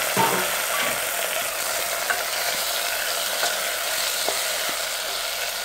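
Onions and freshly added tomatoes sizzling in an aluminium pot as they are stirred with a wooden spoon, with a few light knocks and scrapes of the spoon against the pot.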